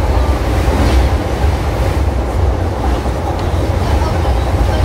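Interior running noise of a JR East E129 series electric train: a steady, loud low rumble of wheels and running gear on the rails, without a break.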